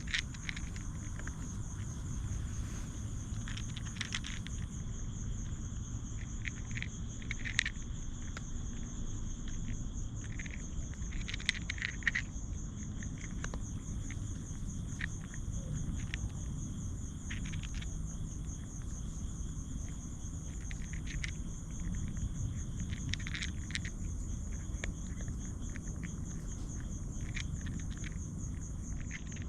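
A steady, high-pitched chorus of night insects trilling without a break, with scattered short rustles and clicks and a constant low rumble underneath.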